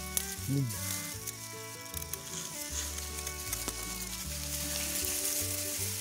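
Dry and green grass blades rustling and crackling as they are pushed aside close to the microphone, over background music with held chords and a changing bass line.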